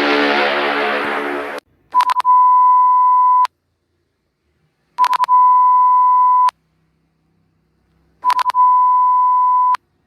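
Mock emergency-alert-system alarm tones. A loud buzzy tone cuts off about one and a half seconds in. Then come three rounds of three quick blips, each followed by a steady high beep lasting about a second and a half, with silence between the rounds.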